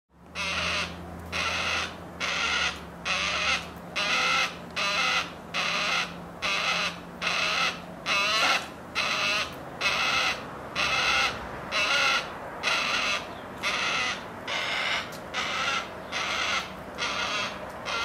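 Juvenile yellow-tailed black cockatoo giving a harsh, rasping call over and over at an even pace, a little more than once a second, each call about half a second long. The unbroken rhythmic calling is typical of a young black cockatoo begging to be fed.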